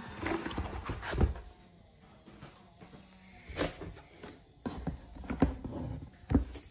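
Cardboard box packaging being handled: rustling of paper and cardboard with several sharp knocks and thumps as a molded pulp insert and cardboard sheet are moved.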